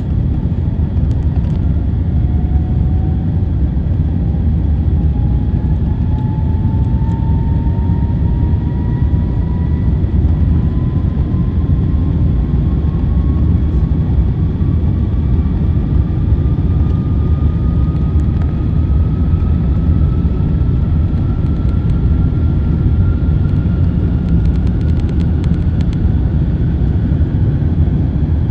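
Cabin noise aboard an Airbus A350-900: a loud, steady low rumble with a thin engine whine from its Rolls-Royce Trent XWB engines climbing slowly in pitch throughout, as the engines run up and the airliner gathers speed on the runway.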